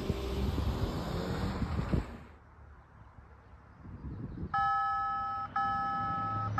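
Wind and road traffic noise that cuts off abruptly about two seconds in. After a quiet spell, level crossing warning bells start ringing near the end: a steady ring broken by a short gap about once a second.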